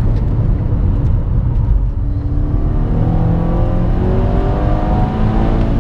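Tuned Seat Leon Cupra 1P's turbocharged 2.0-litre four-cylinder pulling hard under acceleration, heard from inside the cabin over road noise, its pitch climbing from about two seconds in.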